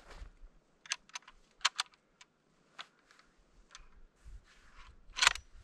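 An m/39 bolt-action rifle being loaded and its bolt worked. There is a run of sharp metallic clicks and clacks, with the loudest pair near the end as the bolt is cycled to feed a round.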